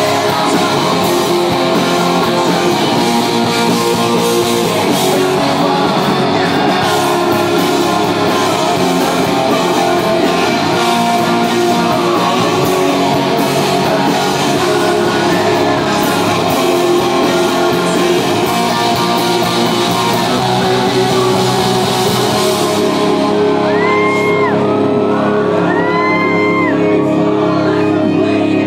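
Live rock band playing: electric guitars, bass and drums under a male lead vocal. Near the end the cymbals drop out and short high whoops from the crowd rise over the music.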